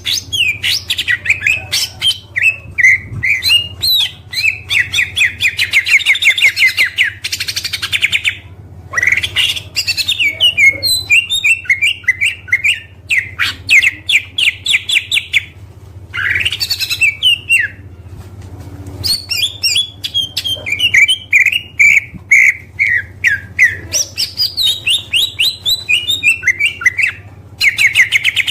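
Oriental magpie-robin (kacer) song: long, varied phrases of rapid, sharp repeated notes and trills, broken by a few short pauses. A steady low hum runs underneath.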